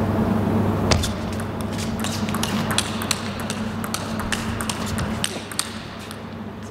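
Table tennis rally: the ball striking the rackets and the table in a quick, irregular series of sharp taps. It starts with the serve about a second in and stops near the end.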